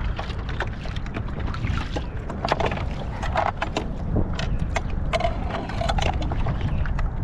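Wind rumbling on the microphone on a kayak on open water, with a scatter of small clicks and rattles from fishing tackle being handled and a couple of brief squeaks midway.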